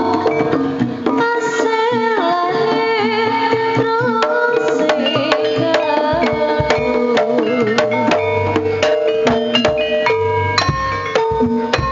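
Javanese jaranan gamelan music played loud through a sound system: rapid hand-drum strokes over a held, wavering melody line and ringing struck notes.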